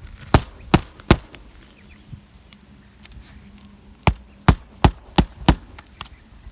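Hammer blows driving roofing nails into a replacement 3-tab asphalt shingle: three quick strikes, a pause of about three seconds, then five more strikes at the same steady pace.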